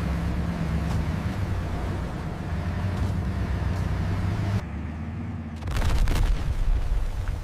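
Film sound effects: a deep, steady rumble that drops away about four and a half seconds in, followed about a second later by a loud blast with a sharp crackle.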